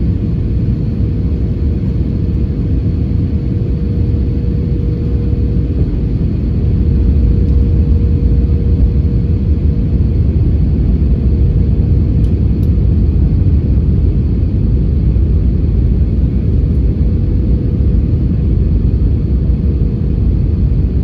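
Airbus A320neo cabin noise on approach: a steady low rumble of engines and airflow over the fuselage, with a constant mid-pitched hum running through it, growing slightly louder about seven seconds in.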